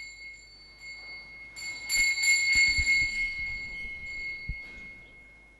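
Small bells ringing in a reverberant church: a high ring that swells into a jangle of shaken bells about a second and a half in, loudest around two to three seconds, then slowly dies away. A few dull thumps sound under the ringing.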